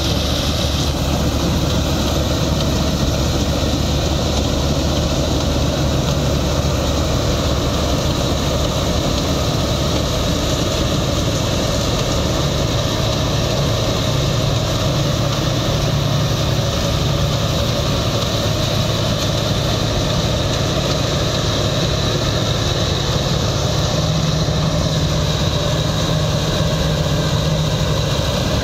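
Combine harvester running steadily while cutting and threshing wheat: a continuous heavy diesel engine note with a steady high whine above it.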